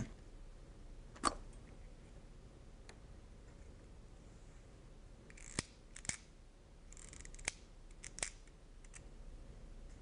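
Sharp plastic clicks from a pump-action HC-IBC fiber optic connector cleaner, each push of the tool advancing fresh cleaning tape across the connector end face. There is one click about a second in, then a cluster of five or six in the last few seconds.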